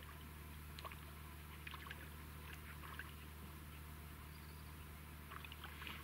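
Faint ambience at the water's edge: a low steady hum under light water lapping, with a few small scattered clicks.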